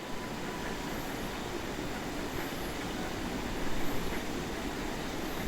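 Bonfire burning: a steady rushing noise with a few faint crackles.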